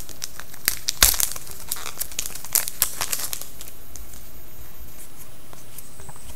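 Shiny trading-card pack wrappers crinkling and tearing as hockey card packs are opened, with a sharp crackle about a second in; the crinkling thins out and goes quieter past the halfway point.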